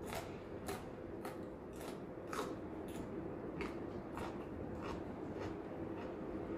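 Crunchy chewing of a raw yardlong bean, about two crisp crunches a second that fade out after about five seconds.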